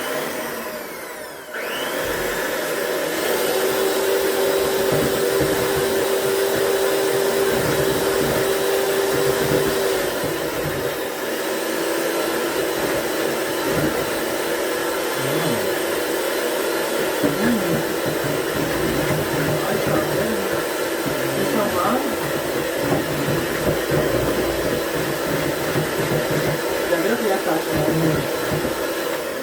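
Electric mixer running steadily as it beats eggs and sugar toward a foamy mix. It starts about two seconds in, and its hum drops a little in pitch about ten seconds in.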